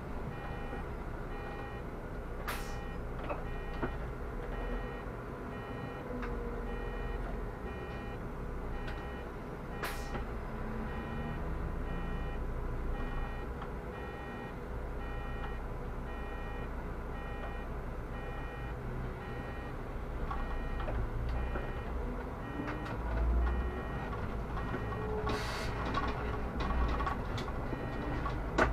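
Inside a Solaris Urbino 18 articulated bus: the engine runs with a low rumble while an electronic warning beep repeats steadily, a little more than once a second. There are a few sharp knocks, and the engine note rises slowly about three quarters of the way through.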